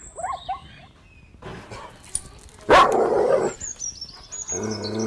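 A dog gives one loud bark about halfway through. It is followed near the end by a longer, low drawn-out call, with thin high chirps in the background.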